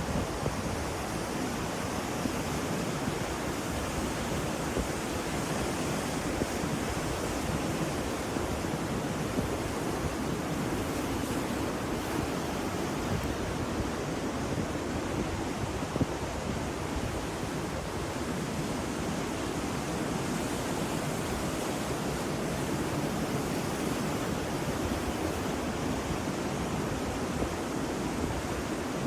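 Ocean surf washing steadily, an even rushing hiss with no distinct breaking waves standing out.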